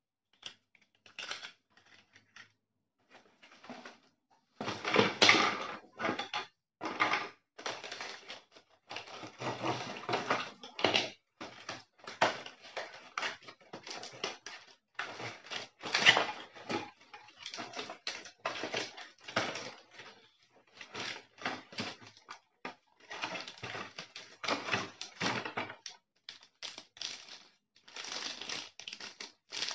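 Cardboard box flaps and paper packaging being handled and crinkled: irregular rustles, scrapes and crackles in quick bursts, loudest about five seconds in and again around sixteen seconds.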